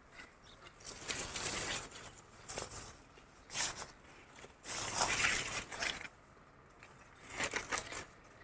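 Irregular bursts of rustling, about five of them, the longest lasting over a second near the middle.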